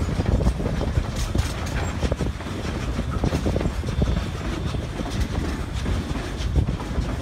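Narrow-gauge passenger train running along the track, heard from an open coach window: a steady low rumble with irregular clacks and knocks from the wheels on the rails.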